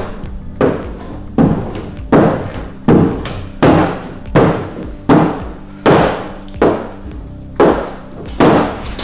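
Background music with a steady beat, about one hit every three quarters of a second over a sustained low tone.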